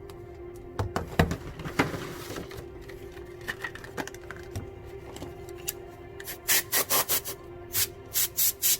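Short, fast rubbing or scraping strokes across a hard surface, about two to three a second, starting a little past the middle. A few sharp knocks come about one to two seconds in, over a steady low hum.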